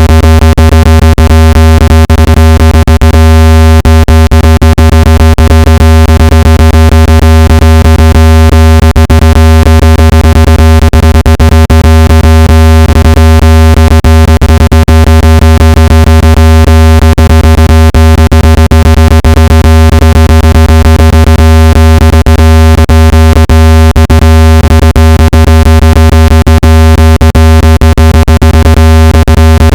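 Loud synthesized speaker-cleaning tone: a steady low hum with a stack of higher steady overtones, broken by frequent brief clicks. It is a vibration tone meant to shake dust and moisture out of a phone speaker.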